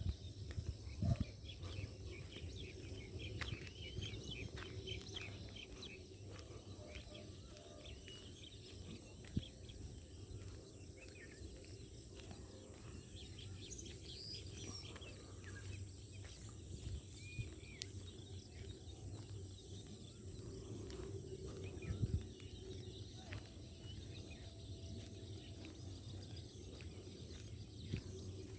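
Birds chirping and calling over a steady low rumble, with a few brief thumps from the walking camera.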